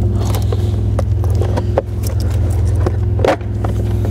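Plastic steering column cover trim being handled and worked loose, with scattered clicks and knocks, the sharpest about three seconds in, over a steady low hum.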